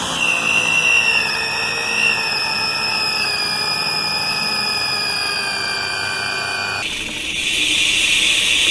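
Micro FPV quadcopter's electric motors whining at a high, slightly wavering pitch, several tones at once. About seven seconds in the whine stops and gives way to a steady hissing buzz.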